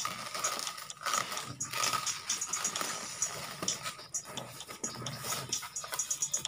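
Thin plastic bag rustling and crinkling while a styrofoam box is worked up and out of it, the foam rubbing against the plastic.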